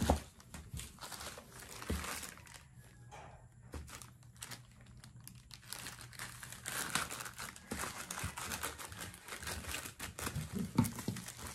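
Plastic courier mailer bag crinkling and rustling as it is handled and cut open with scissors. The crackling is sparse for a few seconds in the middle and busier toward the end.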